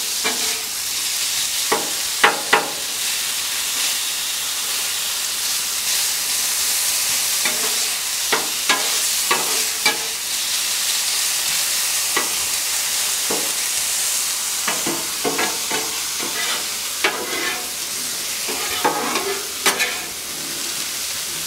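Thin-cut carne asada and diced potatoes sizzling on a hot Blackstone flat-top griddle, with flat metal spatulas scraping and clacking against the steel cooking surface now and then as the meat is turned and chopped.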